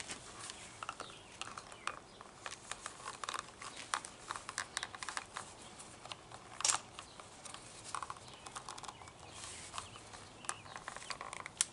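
Scattered light clicks, taps and rustles of small objects being handled, with one sharper tap about two-thirds of the way through.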